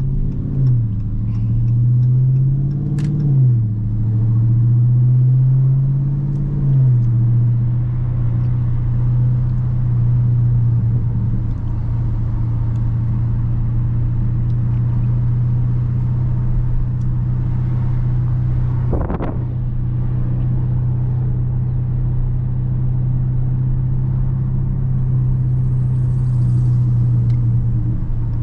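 The 6.4-litre HEMI V8 of a 2019 Dodge Charger Scat Pack, heard loud through its exhaust while driving. In the first seven seconds the engine note climbs and drops back a few times, as on upshifts. It then settles into a steady drone while cruising, with one short rushing noise about two-thirds of the way through.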